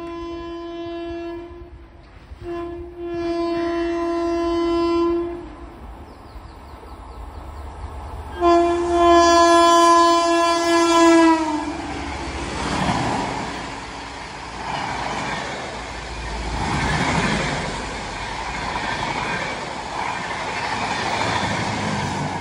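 Electric locomotive's horn sounding three times as an express train approaches: two blasts, then a longer, louder one whose pitch drops at its end as the locomotive passes. Then the rush and rhythmic clatter of the passenger coaches' wheels on the rails as the train runs through at speed.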